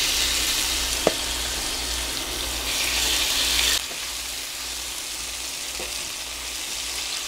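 Seasoned cubes of chicken breast sizzling in hot oil in a nonstick frying pan as they are stirred with a slotted spatula. The sizzle is louder for the first four seconds or so, then settles to a quieter, steady frying.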